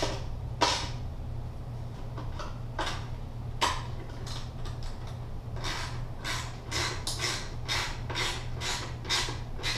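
A 10 mm socket ratchet being worked back and forth to snug the nuts onto a plastic mirror's studs, the pawl clicking in short bursts. There are a few spaced strokes at first, then a steady run of about two strokes a second in the second half.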